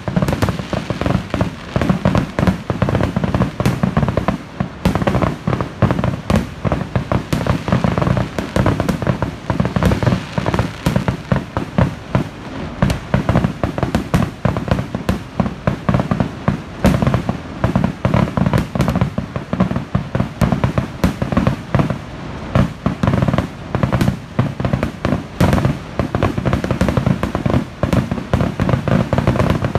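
Festival fireworks display going off in a dense, unbroken barrage of bangs, many a second, over a deep continuous rumble.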